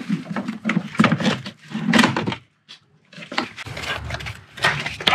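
Repeated knocks, clicks and clatter of removed engine parts and tools being handled and set down, with a short pause a little past halfway.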